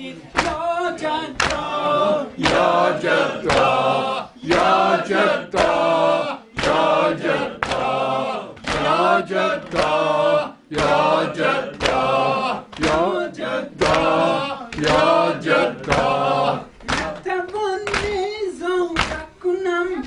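Men chanting a noha, a Shia lament for Muharram, together, with matam: palms striking chests in a steady beat under the singing.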